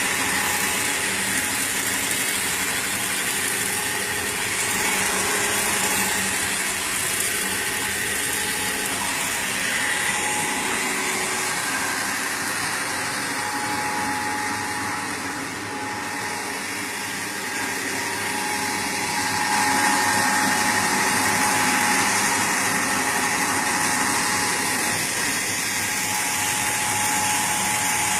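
Fish-feed pellet machine running steadily: a continuous mechanical drone and hiss with a thin steady whine, dipping slightly in loudness midway.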